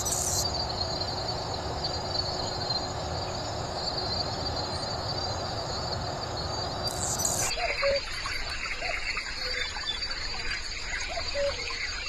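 Dense insect-like trilling with a steady high buzz and a short high scratchy burst about seven seconds in. The sound then changes to a common cuckoo calling its low two-note "cu-coo" several times over higher chirping.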